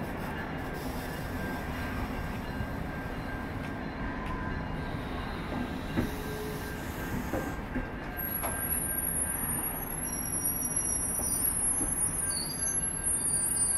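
Siemens Venture passenger coaches rolling slowly past on the rails, a steady rumble of wheels on track. From about eight seconds in, high-pitched wheel squeal joins as several thin whining tones, and the sound grows slightly louder.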